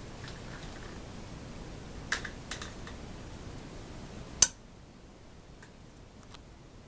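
Chrome Toastmaster pop-up toaster: a few light clicks from its mechanism, then one sharp, loud clack about four and a half seconds in as the toaster releases and pops up. The steady background noise drops away right after the clack.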